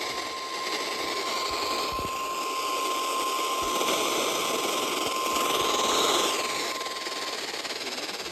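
Radio static hiss from an alert broadcast receiver, with a faint steady high tone that stops near the end. The hiss swells up and falls back about five to six seconds in.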